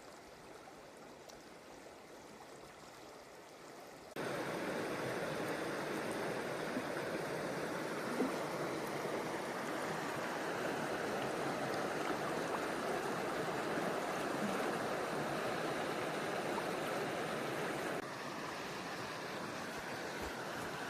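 Steady rush of flowing river water, faint at first, then suddenly much louder about four seconds in, and a little quieter again near the end.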